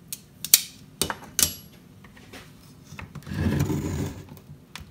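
Chainsaw parts handled on a workbench: four sharp clicks in the first second and a half, then about a second of scraping and rubbing as the Jonsered 625's housing is set onto the engine assembly.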